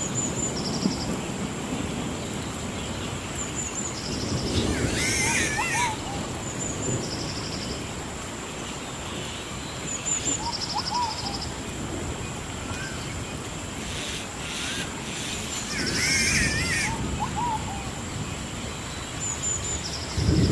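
Layered tropical forest ambience: a steady high whine runs throughout, a short pulsed trill repeats every two to three seconds with brief high chirps between, and a bird gives a warbling call twice, about five and sixteen seconds in, all over a low rumbling noise.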